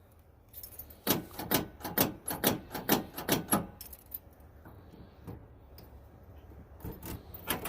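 Keys jangling on a key ring and clicking in a 1986 Ford Mustang's door lock cylinder as the key is worked: a quick run of clicks for about three seconds, then a few more near the end.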